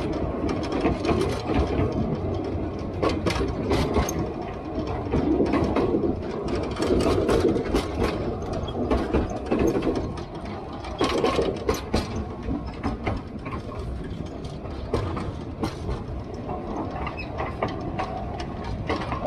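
Narrow-gauge train running along the track, heard from aboard: a steady low rumble with frequent irregular clicks and rattles from the wheels and carriage.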